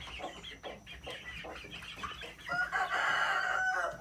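Flock of chickens clucking, then a rooster crowing: one long crow about two and a half seconds in, the loudest sound.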